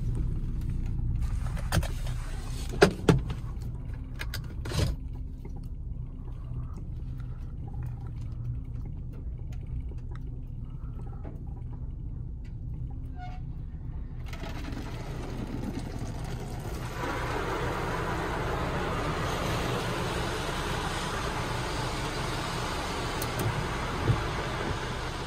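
Heard from inside a car's cabin: the engine hums steadily at a crawl, with a few sharp clicks in the first five seconds. About fourteen seconds in, the N/S drive-through bus wash's water spray starts hissing onto the car, growing louder a few seconds later as it pours over the windshield.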